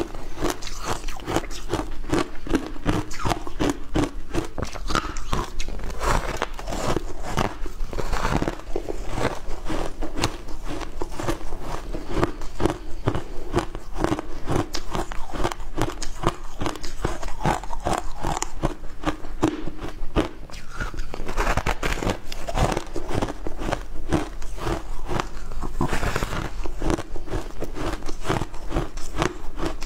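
Frozen shaved ice with a passion fruit topping being bitten and chewed: a continuous run of sharp, crackling crunches.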